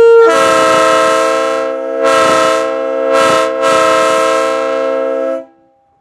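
Multi-chime locomotive air horn blowing a loud chord for about five seconds. One note sounds a moment before the others join, the chord swells and dips a few times, then it cuts off.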